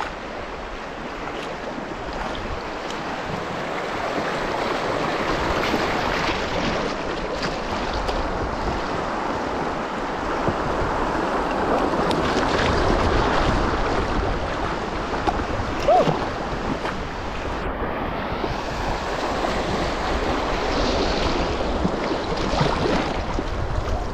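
Rushing water of a river rapid as a boat runs through it. A steady rush of noise that builds over the first few seconds and then holds.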